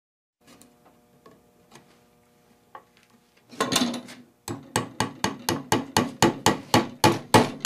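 A quick, even series of sharp knocks, about three a second, growing steadily louder, after a faint low hum with a few soft clicks.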